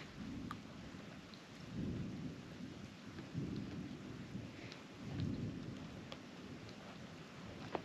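Light rain, with scattered drops ticking close by and low rumbling swells every second or two.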